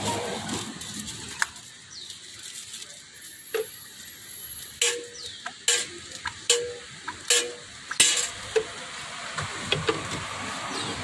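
Metal ladle clinking and scraping against a steel pot and tin cans as sauce is scooped out: a run of sharp clinks, some with a short metallic ring, starting a few seconds in.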